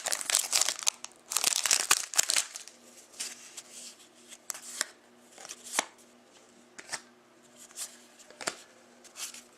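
A 2013-14 Panini Contenders hockey card pack's wrapper being torn open and crinkled for the first couple of seconds, then quieter scattered clicks as the cards inside are handled one at a time.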